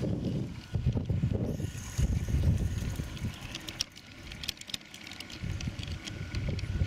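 A 16 mm scale live steam locomotive runs along garden railway track, heard from a camera in its cab. There is an uneven low rumble with wind on the microphone, and scattered light clicks of the wheels on the rails.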